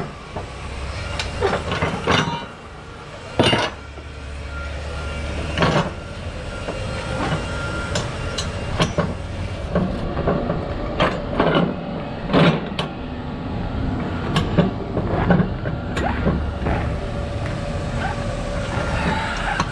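Many irregular metal clanks and knocks over a steady low engine rumble: straps and winches being worked while a load is secured on a flatbed trailer.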